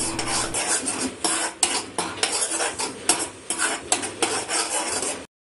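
Metal spatula scraping and knocking against the side of a metal kadai, irregularly, as onion and green chilli paste is stirred and frying in hot oil, with a sizzle under it. The sound cuts off abruptly near the end.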